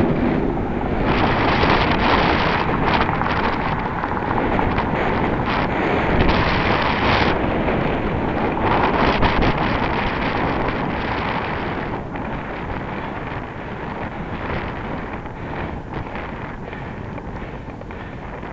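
Wind rushing and buffeting over the microphone of a camera on a moving bicycle, with road noise underneath; the rush eases off in the second half.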